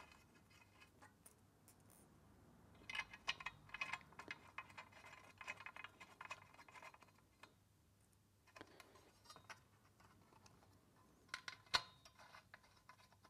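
Faint, irregular small metallic clicks and scrapes of screws being fitted by hand into a rowing machine's metal support leg, coming in clusters with a quiet stretch just past the middle.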